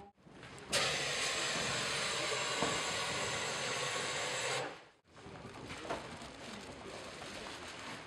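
Compressed carbon dioxide hissing from a gas cylinder through a hose into a closed bin, gassing poultry for culling; the hiss starts abruptly just under a second in and stops about four seconds later. Then fainter room noise with a few light knocks.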